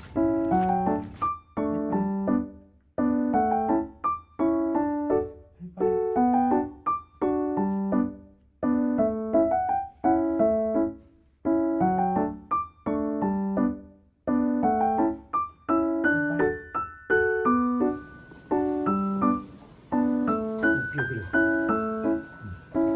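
Background piano music: struck chords and melody notes repeating in steady phrases. A faint hiss joins in for the last few seconds.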